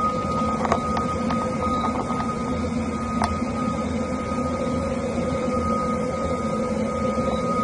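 Strange humming sound in the night sky: a steady mechanical-sounding drone with a constant high tone over lower steady tones and a rumble, with a few faint scattered clicks.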